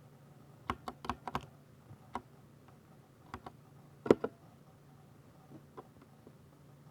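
Keystrokes on a 60% Ducky mechanical keyboard with silver switches: a quick run of five key presses, then single, unhurried presses spaced out, one noticeably louder stroke about four seconds in.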